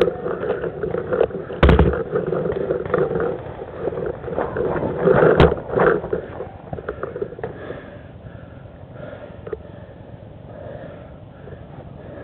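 Two single sharp pops from a paintball marker firing close to the camera, one about two seconds in and one past five seconds. Between them is rough handling and movement noise, which settles to a quieter background in the second half.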